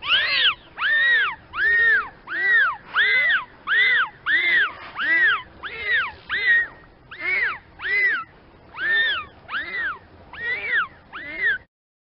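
Dolphin whistles: a quick run of about sixteen short whistles, each arching up and then down in pitch, coming roughly every 0.7 s before stopping abruptly near the end.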